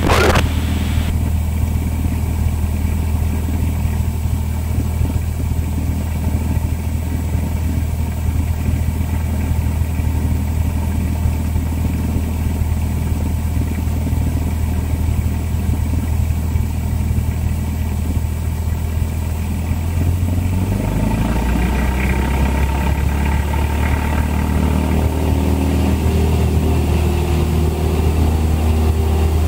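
Cessna 172's four-cylinder engine and propeller droning steadily in the cabin during the climb. About two-thirds of the way through, the engine note drops slightly as power changes.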